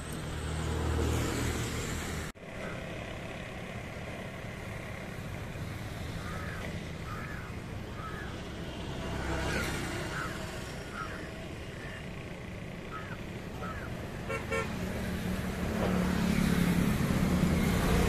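City road traffic with a car horn tooting several times in quick succession past the middle. A vehicle's low rumble grows louder near the end, and the sound cuts out briefly about two seconds in.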